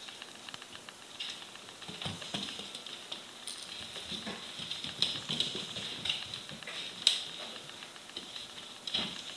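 Wheaten terrier puppy's claws clicking and pattering on a tile floor as it scampers about, in irregular scattered ticks with a few sharper clicks.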